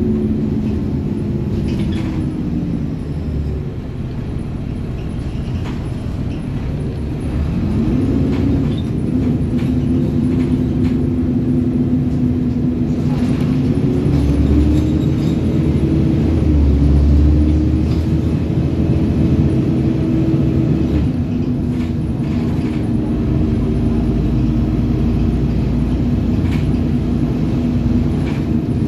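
City bus heard from inside while it drives. The engine and drivetrain make a steady drone whose pitch drops about two seconds in and climbs again around eight seconds, over a low road rumble with a few light rattles and knocks from the body.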